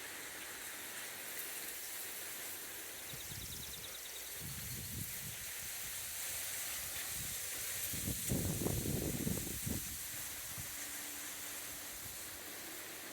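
Quiet outdoor ambience: a steady hiss, with two stretches of low rumbling, the louder about eight seconds in, and a faint rapid trill about three seconds in.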